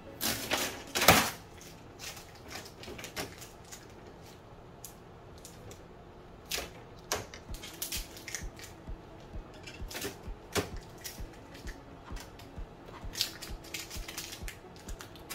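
Blue painter's tape being peeled off a plastic Epson EcoTank ET-8550 printer, with a loud rip in the first second. After that come scattered clicks and crackles from tape and plastic panels being handled.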